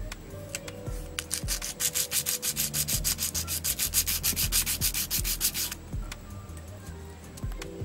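Sandpaper rubbed back and forth over the metal pins of a small electronic component. The strokes are quick and even, about seven a second, from about a second and a half in until about six seconds in, with slower, softer rubbing before and after.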